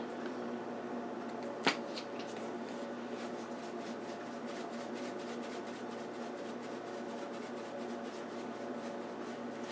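Black pepper being shaken from a plastic shaker onto raw pork spare ribs: faint light ticks, with one sharp click about a second and a half in. Under it runs a steady electrical hum.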